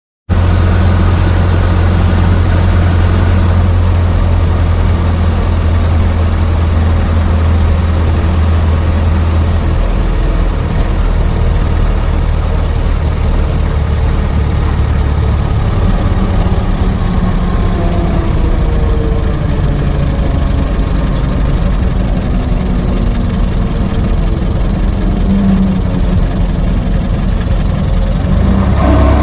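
An old car's engine running steadily at idle, a low, even rumble.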